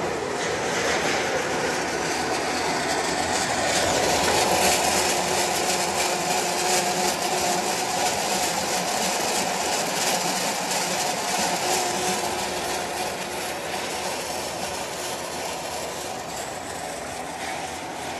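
RF030-080-100 rollform line for CD drywall profiles running, steel strip feeding through its forming rolls: a steady mechanical clatter and rumble, with a faint steady whine in the middle stretch.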